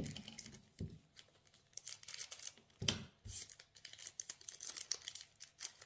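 Foil booster-pack wrapper of Pokémon trading cards being torn open and crinkled by hand: a run of irregular crackling rips and rustles, with a couple of soft thumps.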